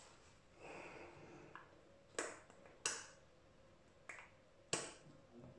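Sharp plastic clicks, four of them starting about two seconds in, as a tight-fitting skin-care container is pried at and resists opening.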